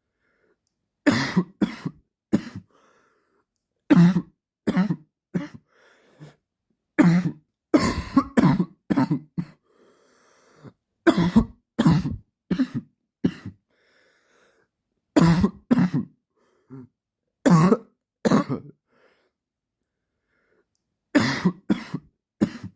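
A man's dry cough in short fits of two to five sharp coughs each, the fits repeating every few seconds with silent pauses between them.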